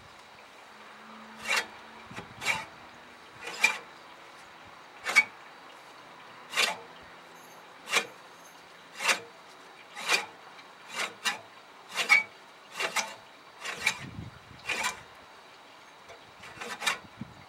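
Blades of an AL-KO 380 HM Soft Touch hand reel mower, turned by hand, each sweeping past the bedknife with a short scraping snip: about fifteen strokes at irregular intervals of roughly a second. A strip of paper is being fed between blade and bedknife to test the edge after back lapping.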